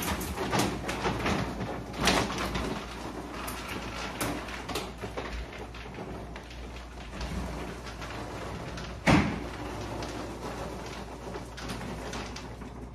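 Household cleaning noises: scattered knocks and clatter of things being handled and moved, over a rustling, rain-like noise, with one loud bang about nine seconds in.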